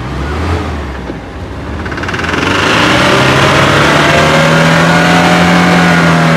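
Jeep Wrangler engine revving hard as it claws up a steep dirt bank, its mud tyres spinning and throwing dirt. It swells louder about two seconds in and then holds at high revs.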